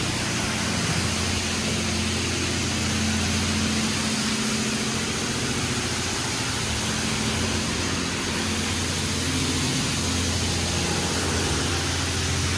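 PDQ LaserWash 4000 touchless car wash spraying a car with high-pressure water jets from its moving overhead arm: a loud, steady hiss of spray over a steady low hum.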